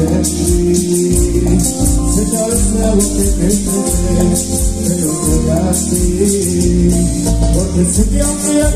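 Latin tropical dance music: singing over a steady beat with bass and shaker-type percussion.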